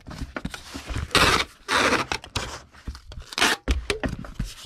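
Packing materials being handled: a magazine in its plastic bag and board being worked into a mailer, rustling and scraping in a few short bursts with small clicks.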